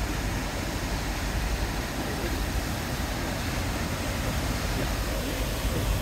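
Steady rushing of a waterfall pouring over rocks into the sea, with a strong low rumble underneath.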